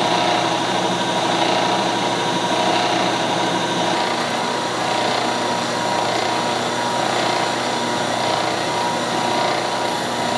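Vertical knee milling machine running, its carbide face mill cutting aluminium: a steady machining noise with a constant tone in it.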